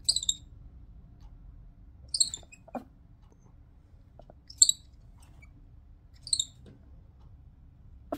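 Midas tamarin giving its warning call: four short, very high-pitched calls spaced about two seconds apart.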